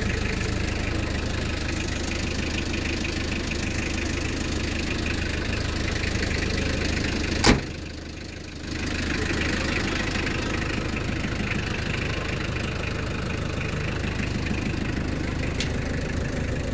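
1992 Nissan Vanette's 2.0-litre LD20 naturally aspirated diesel idling steadily. A single sharp click about seven and a half seconds in is the loudest moment, after which the engine sound drops for about a second before returning.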